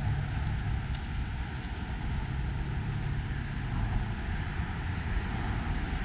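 Steady rumble of road traffic, with a low drone that swells and fades as vehicles pass.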